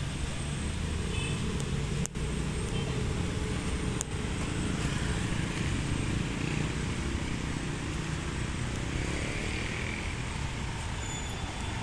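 Steady street traffic: cars, motorcycles and scooters passing with their engines running, broken by two short clicks and drops about two and four seconds in.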